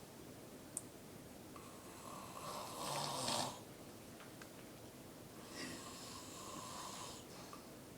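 Snoring: one loud snore about three seconds in, then a softer, longer one around six seconds in. There is a short click just under a second in.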